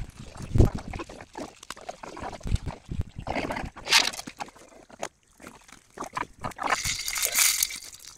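Irregular clinks and scrapes of a ladle working in a pot of chicken gravy, with some sloshing of liquid, as the cooked chicken pieces are lifted out.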